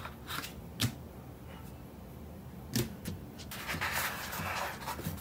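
A few light taps, then a sheet of watercolour paper rustling in the second half as it is lifted and turned over on the pad.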